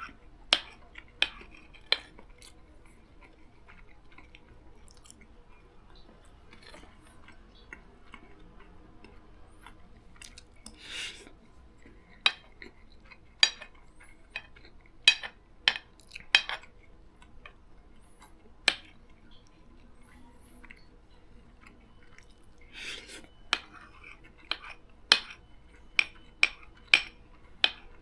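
A person eating egg fried rice: a spoon clinks sharply against a plate or bowl at irregular intervals, with soft chewing between the clinks.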